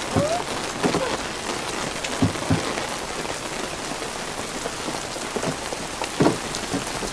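Steady rain falling on hard surfaces, with a few short knocks through it.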